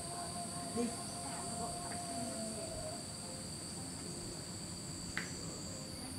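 Steady high-pitched insect chorus droning in two unbroken high notes, with a faint outdoor background and a single small click about five seconds in.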